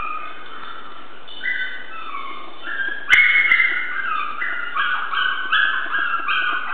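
Chihuahua puppies whimpering and yipping: many overlapping high-pitched whines that grow louder and busier about halfway through, with a single knock at about the same moment.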